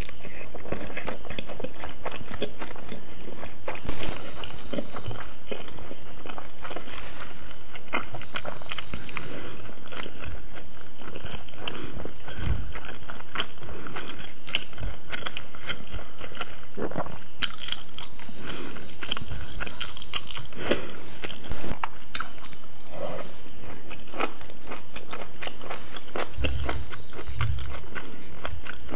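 Close-miked chewing of black bean sauce noodles (jajangmyeon): a steady stream of small mouth clicks and smacks. A few low thumps come near the end.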